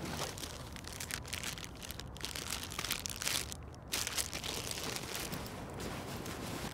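Hands rummaging through a nylon backpack: the fabric rustles and a plastic water bottle crinkles in irregular scratchy bursts.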